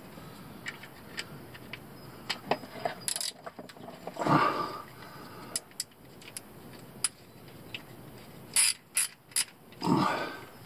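Ratchet wrench with an 18 mm socket on a front differential plug of a GM pickup, clicking in scattered short runs, with louder metal clanks or scrapes about four seconds in and near the end.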